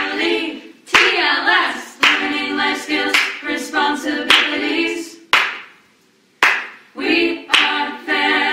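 Group of voices singing with sharp hand claps roughly once a second. The song drops out briefly about five and a half seconds in, then resumes.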